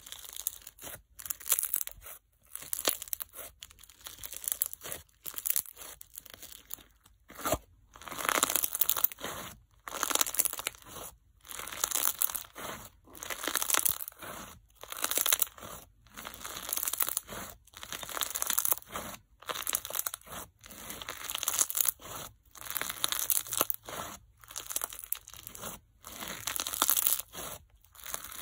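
Crunch slime made of bingsu beads and microbeads being squeezed, pulled and pressed by hand, giving bursts of fizzy crackling and popping about once a second.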